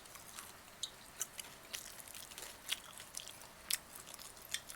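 Close-up chewing and biting of grilled chicken: irregular wet mouth clicks and smacks, a few each second.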